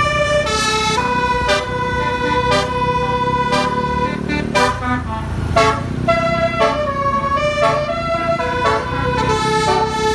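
Multi-tone 'telolet' air horn of an Indonesian bus or truck playing a melody: held notes stepping from pitch to pitch, with a sharp new onset about once a second, over a low rumble.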